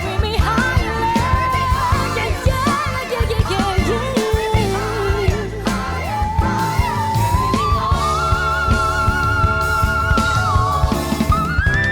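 A female singer performs a slow soul ballad with band accompaniment, holding one long high note for a few seconds in the second half, then sliding up near the end.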